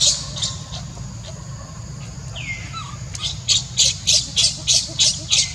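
Baby macaque crying in distress, a run of shrill squeals about four a second that starts about three seconds in, after a few at the very start.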